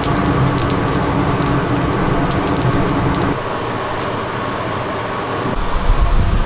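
Charcoal crackling under köfte skewers on a charcoal grill, with many short snaps over a steady kitchen machine hum. A little over three seconds in the crackling stops and the hum goes on, with a few low thumps near the end.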